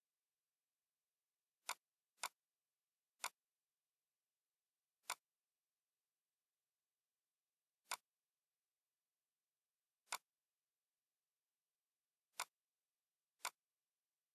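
Computer mouse clicks: eight short, sharp single clicks at irregular intervals, some a half-second apart and others two or three seconds apart.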